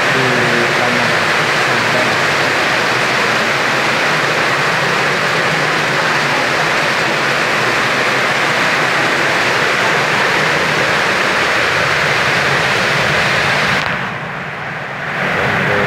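Heavy rain pouring down, a loud steady hiss of rain falling on roofs and pavement. It briefly drops quieter for about a second and a half near the end, then comes back.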